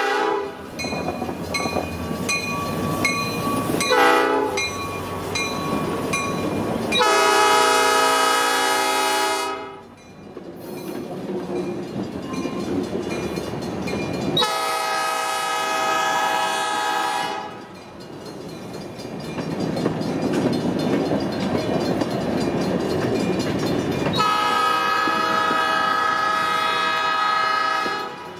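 Diesel freight locomotive sounding its multi-chime air horn: a blast just ending at the start, a short toot about four seconds in, then three long blasts, with the rumble of the locomotive and its wheels on the rails between them.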